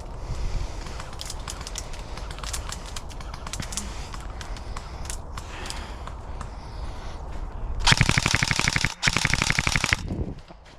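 BOLT MP5K airsoft electric gun firing two full-auto bursts, each about a second long, starting about eight seconds in. Before them, scattered faint cracks of other airsoft fire.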